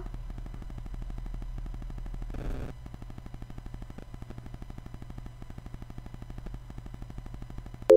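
Countdown timer sound effect: rapid, evenly spaced ticking over a low hum, with a brief hiss about two and a half seconds in. It ends in a sharp click and a mallet-like chime as the timer runs out.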